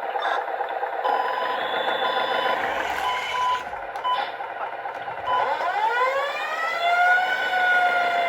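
An RC model truck's sound module plays through a small speaker: engine sound with short beeps, then about five seconds in a siren winds up in pitch and holds.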